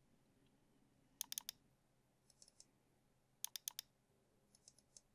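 Faint, sharp clicks in two quick bursts of about four, about a second in and again about three and a half seconds in, with a few fainter single clicks between them and near the end.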